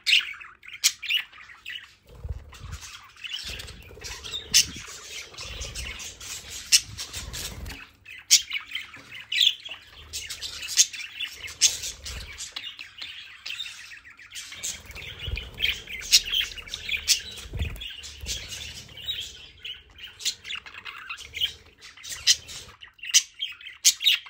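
Pet budgerigars chattering: a steady stream of rapid chirps, warbles and sharp squawks from several birds at once.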